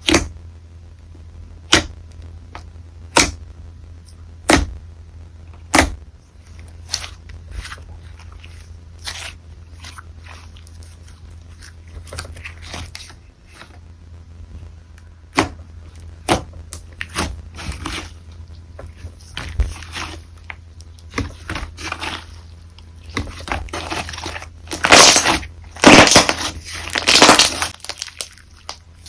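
Slime being played with by hand. A sharp pop comes about every second and a half for the first six seconds, then scattered wet clicks follow, building to a run of loud, crackly, crunchy squishing near the end.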